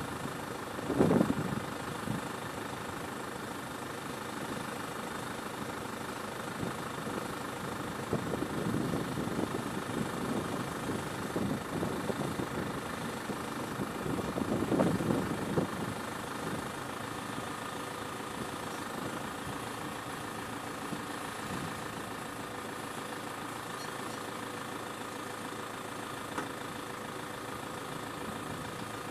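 Tractor diesel engine idling steadily while it drives the hydraulics that fold the boom of a trailed Evrard field sprayer, with a few louder rumbling swells about a second in, around nine seconds and around fifteen seconds.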